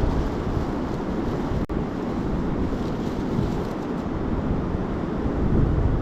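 Steady rush of a fast river, a low, even noise, with wind buffeting the microphone.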